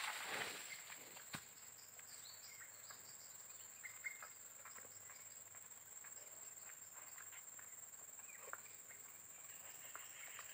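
Faint tropical forest ambience: a steady high-pitched insect drone with a few scattered faint bird chirps, and a brief rustle fading out at the very start.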